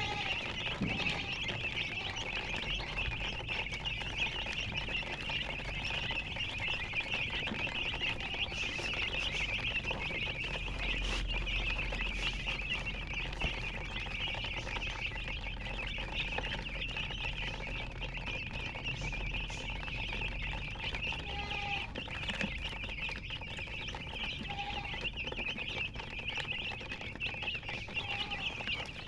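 A flock of chicks peeping continuously, a dense chorus of high chirps that keeps up without a break.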